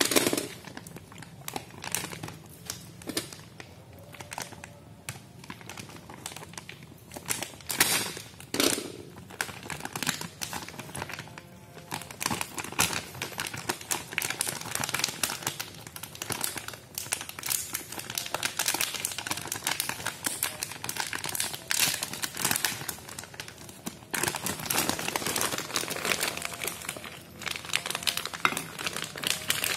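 A thin plastic snack bag crinkling and rustling in irregular bursts as hands pull it open and tip it, with small hard snacks shifting inside.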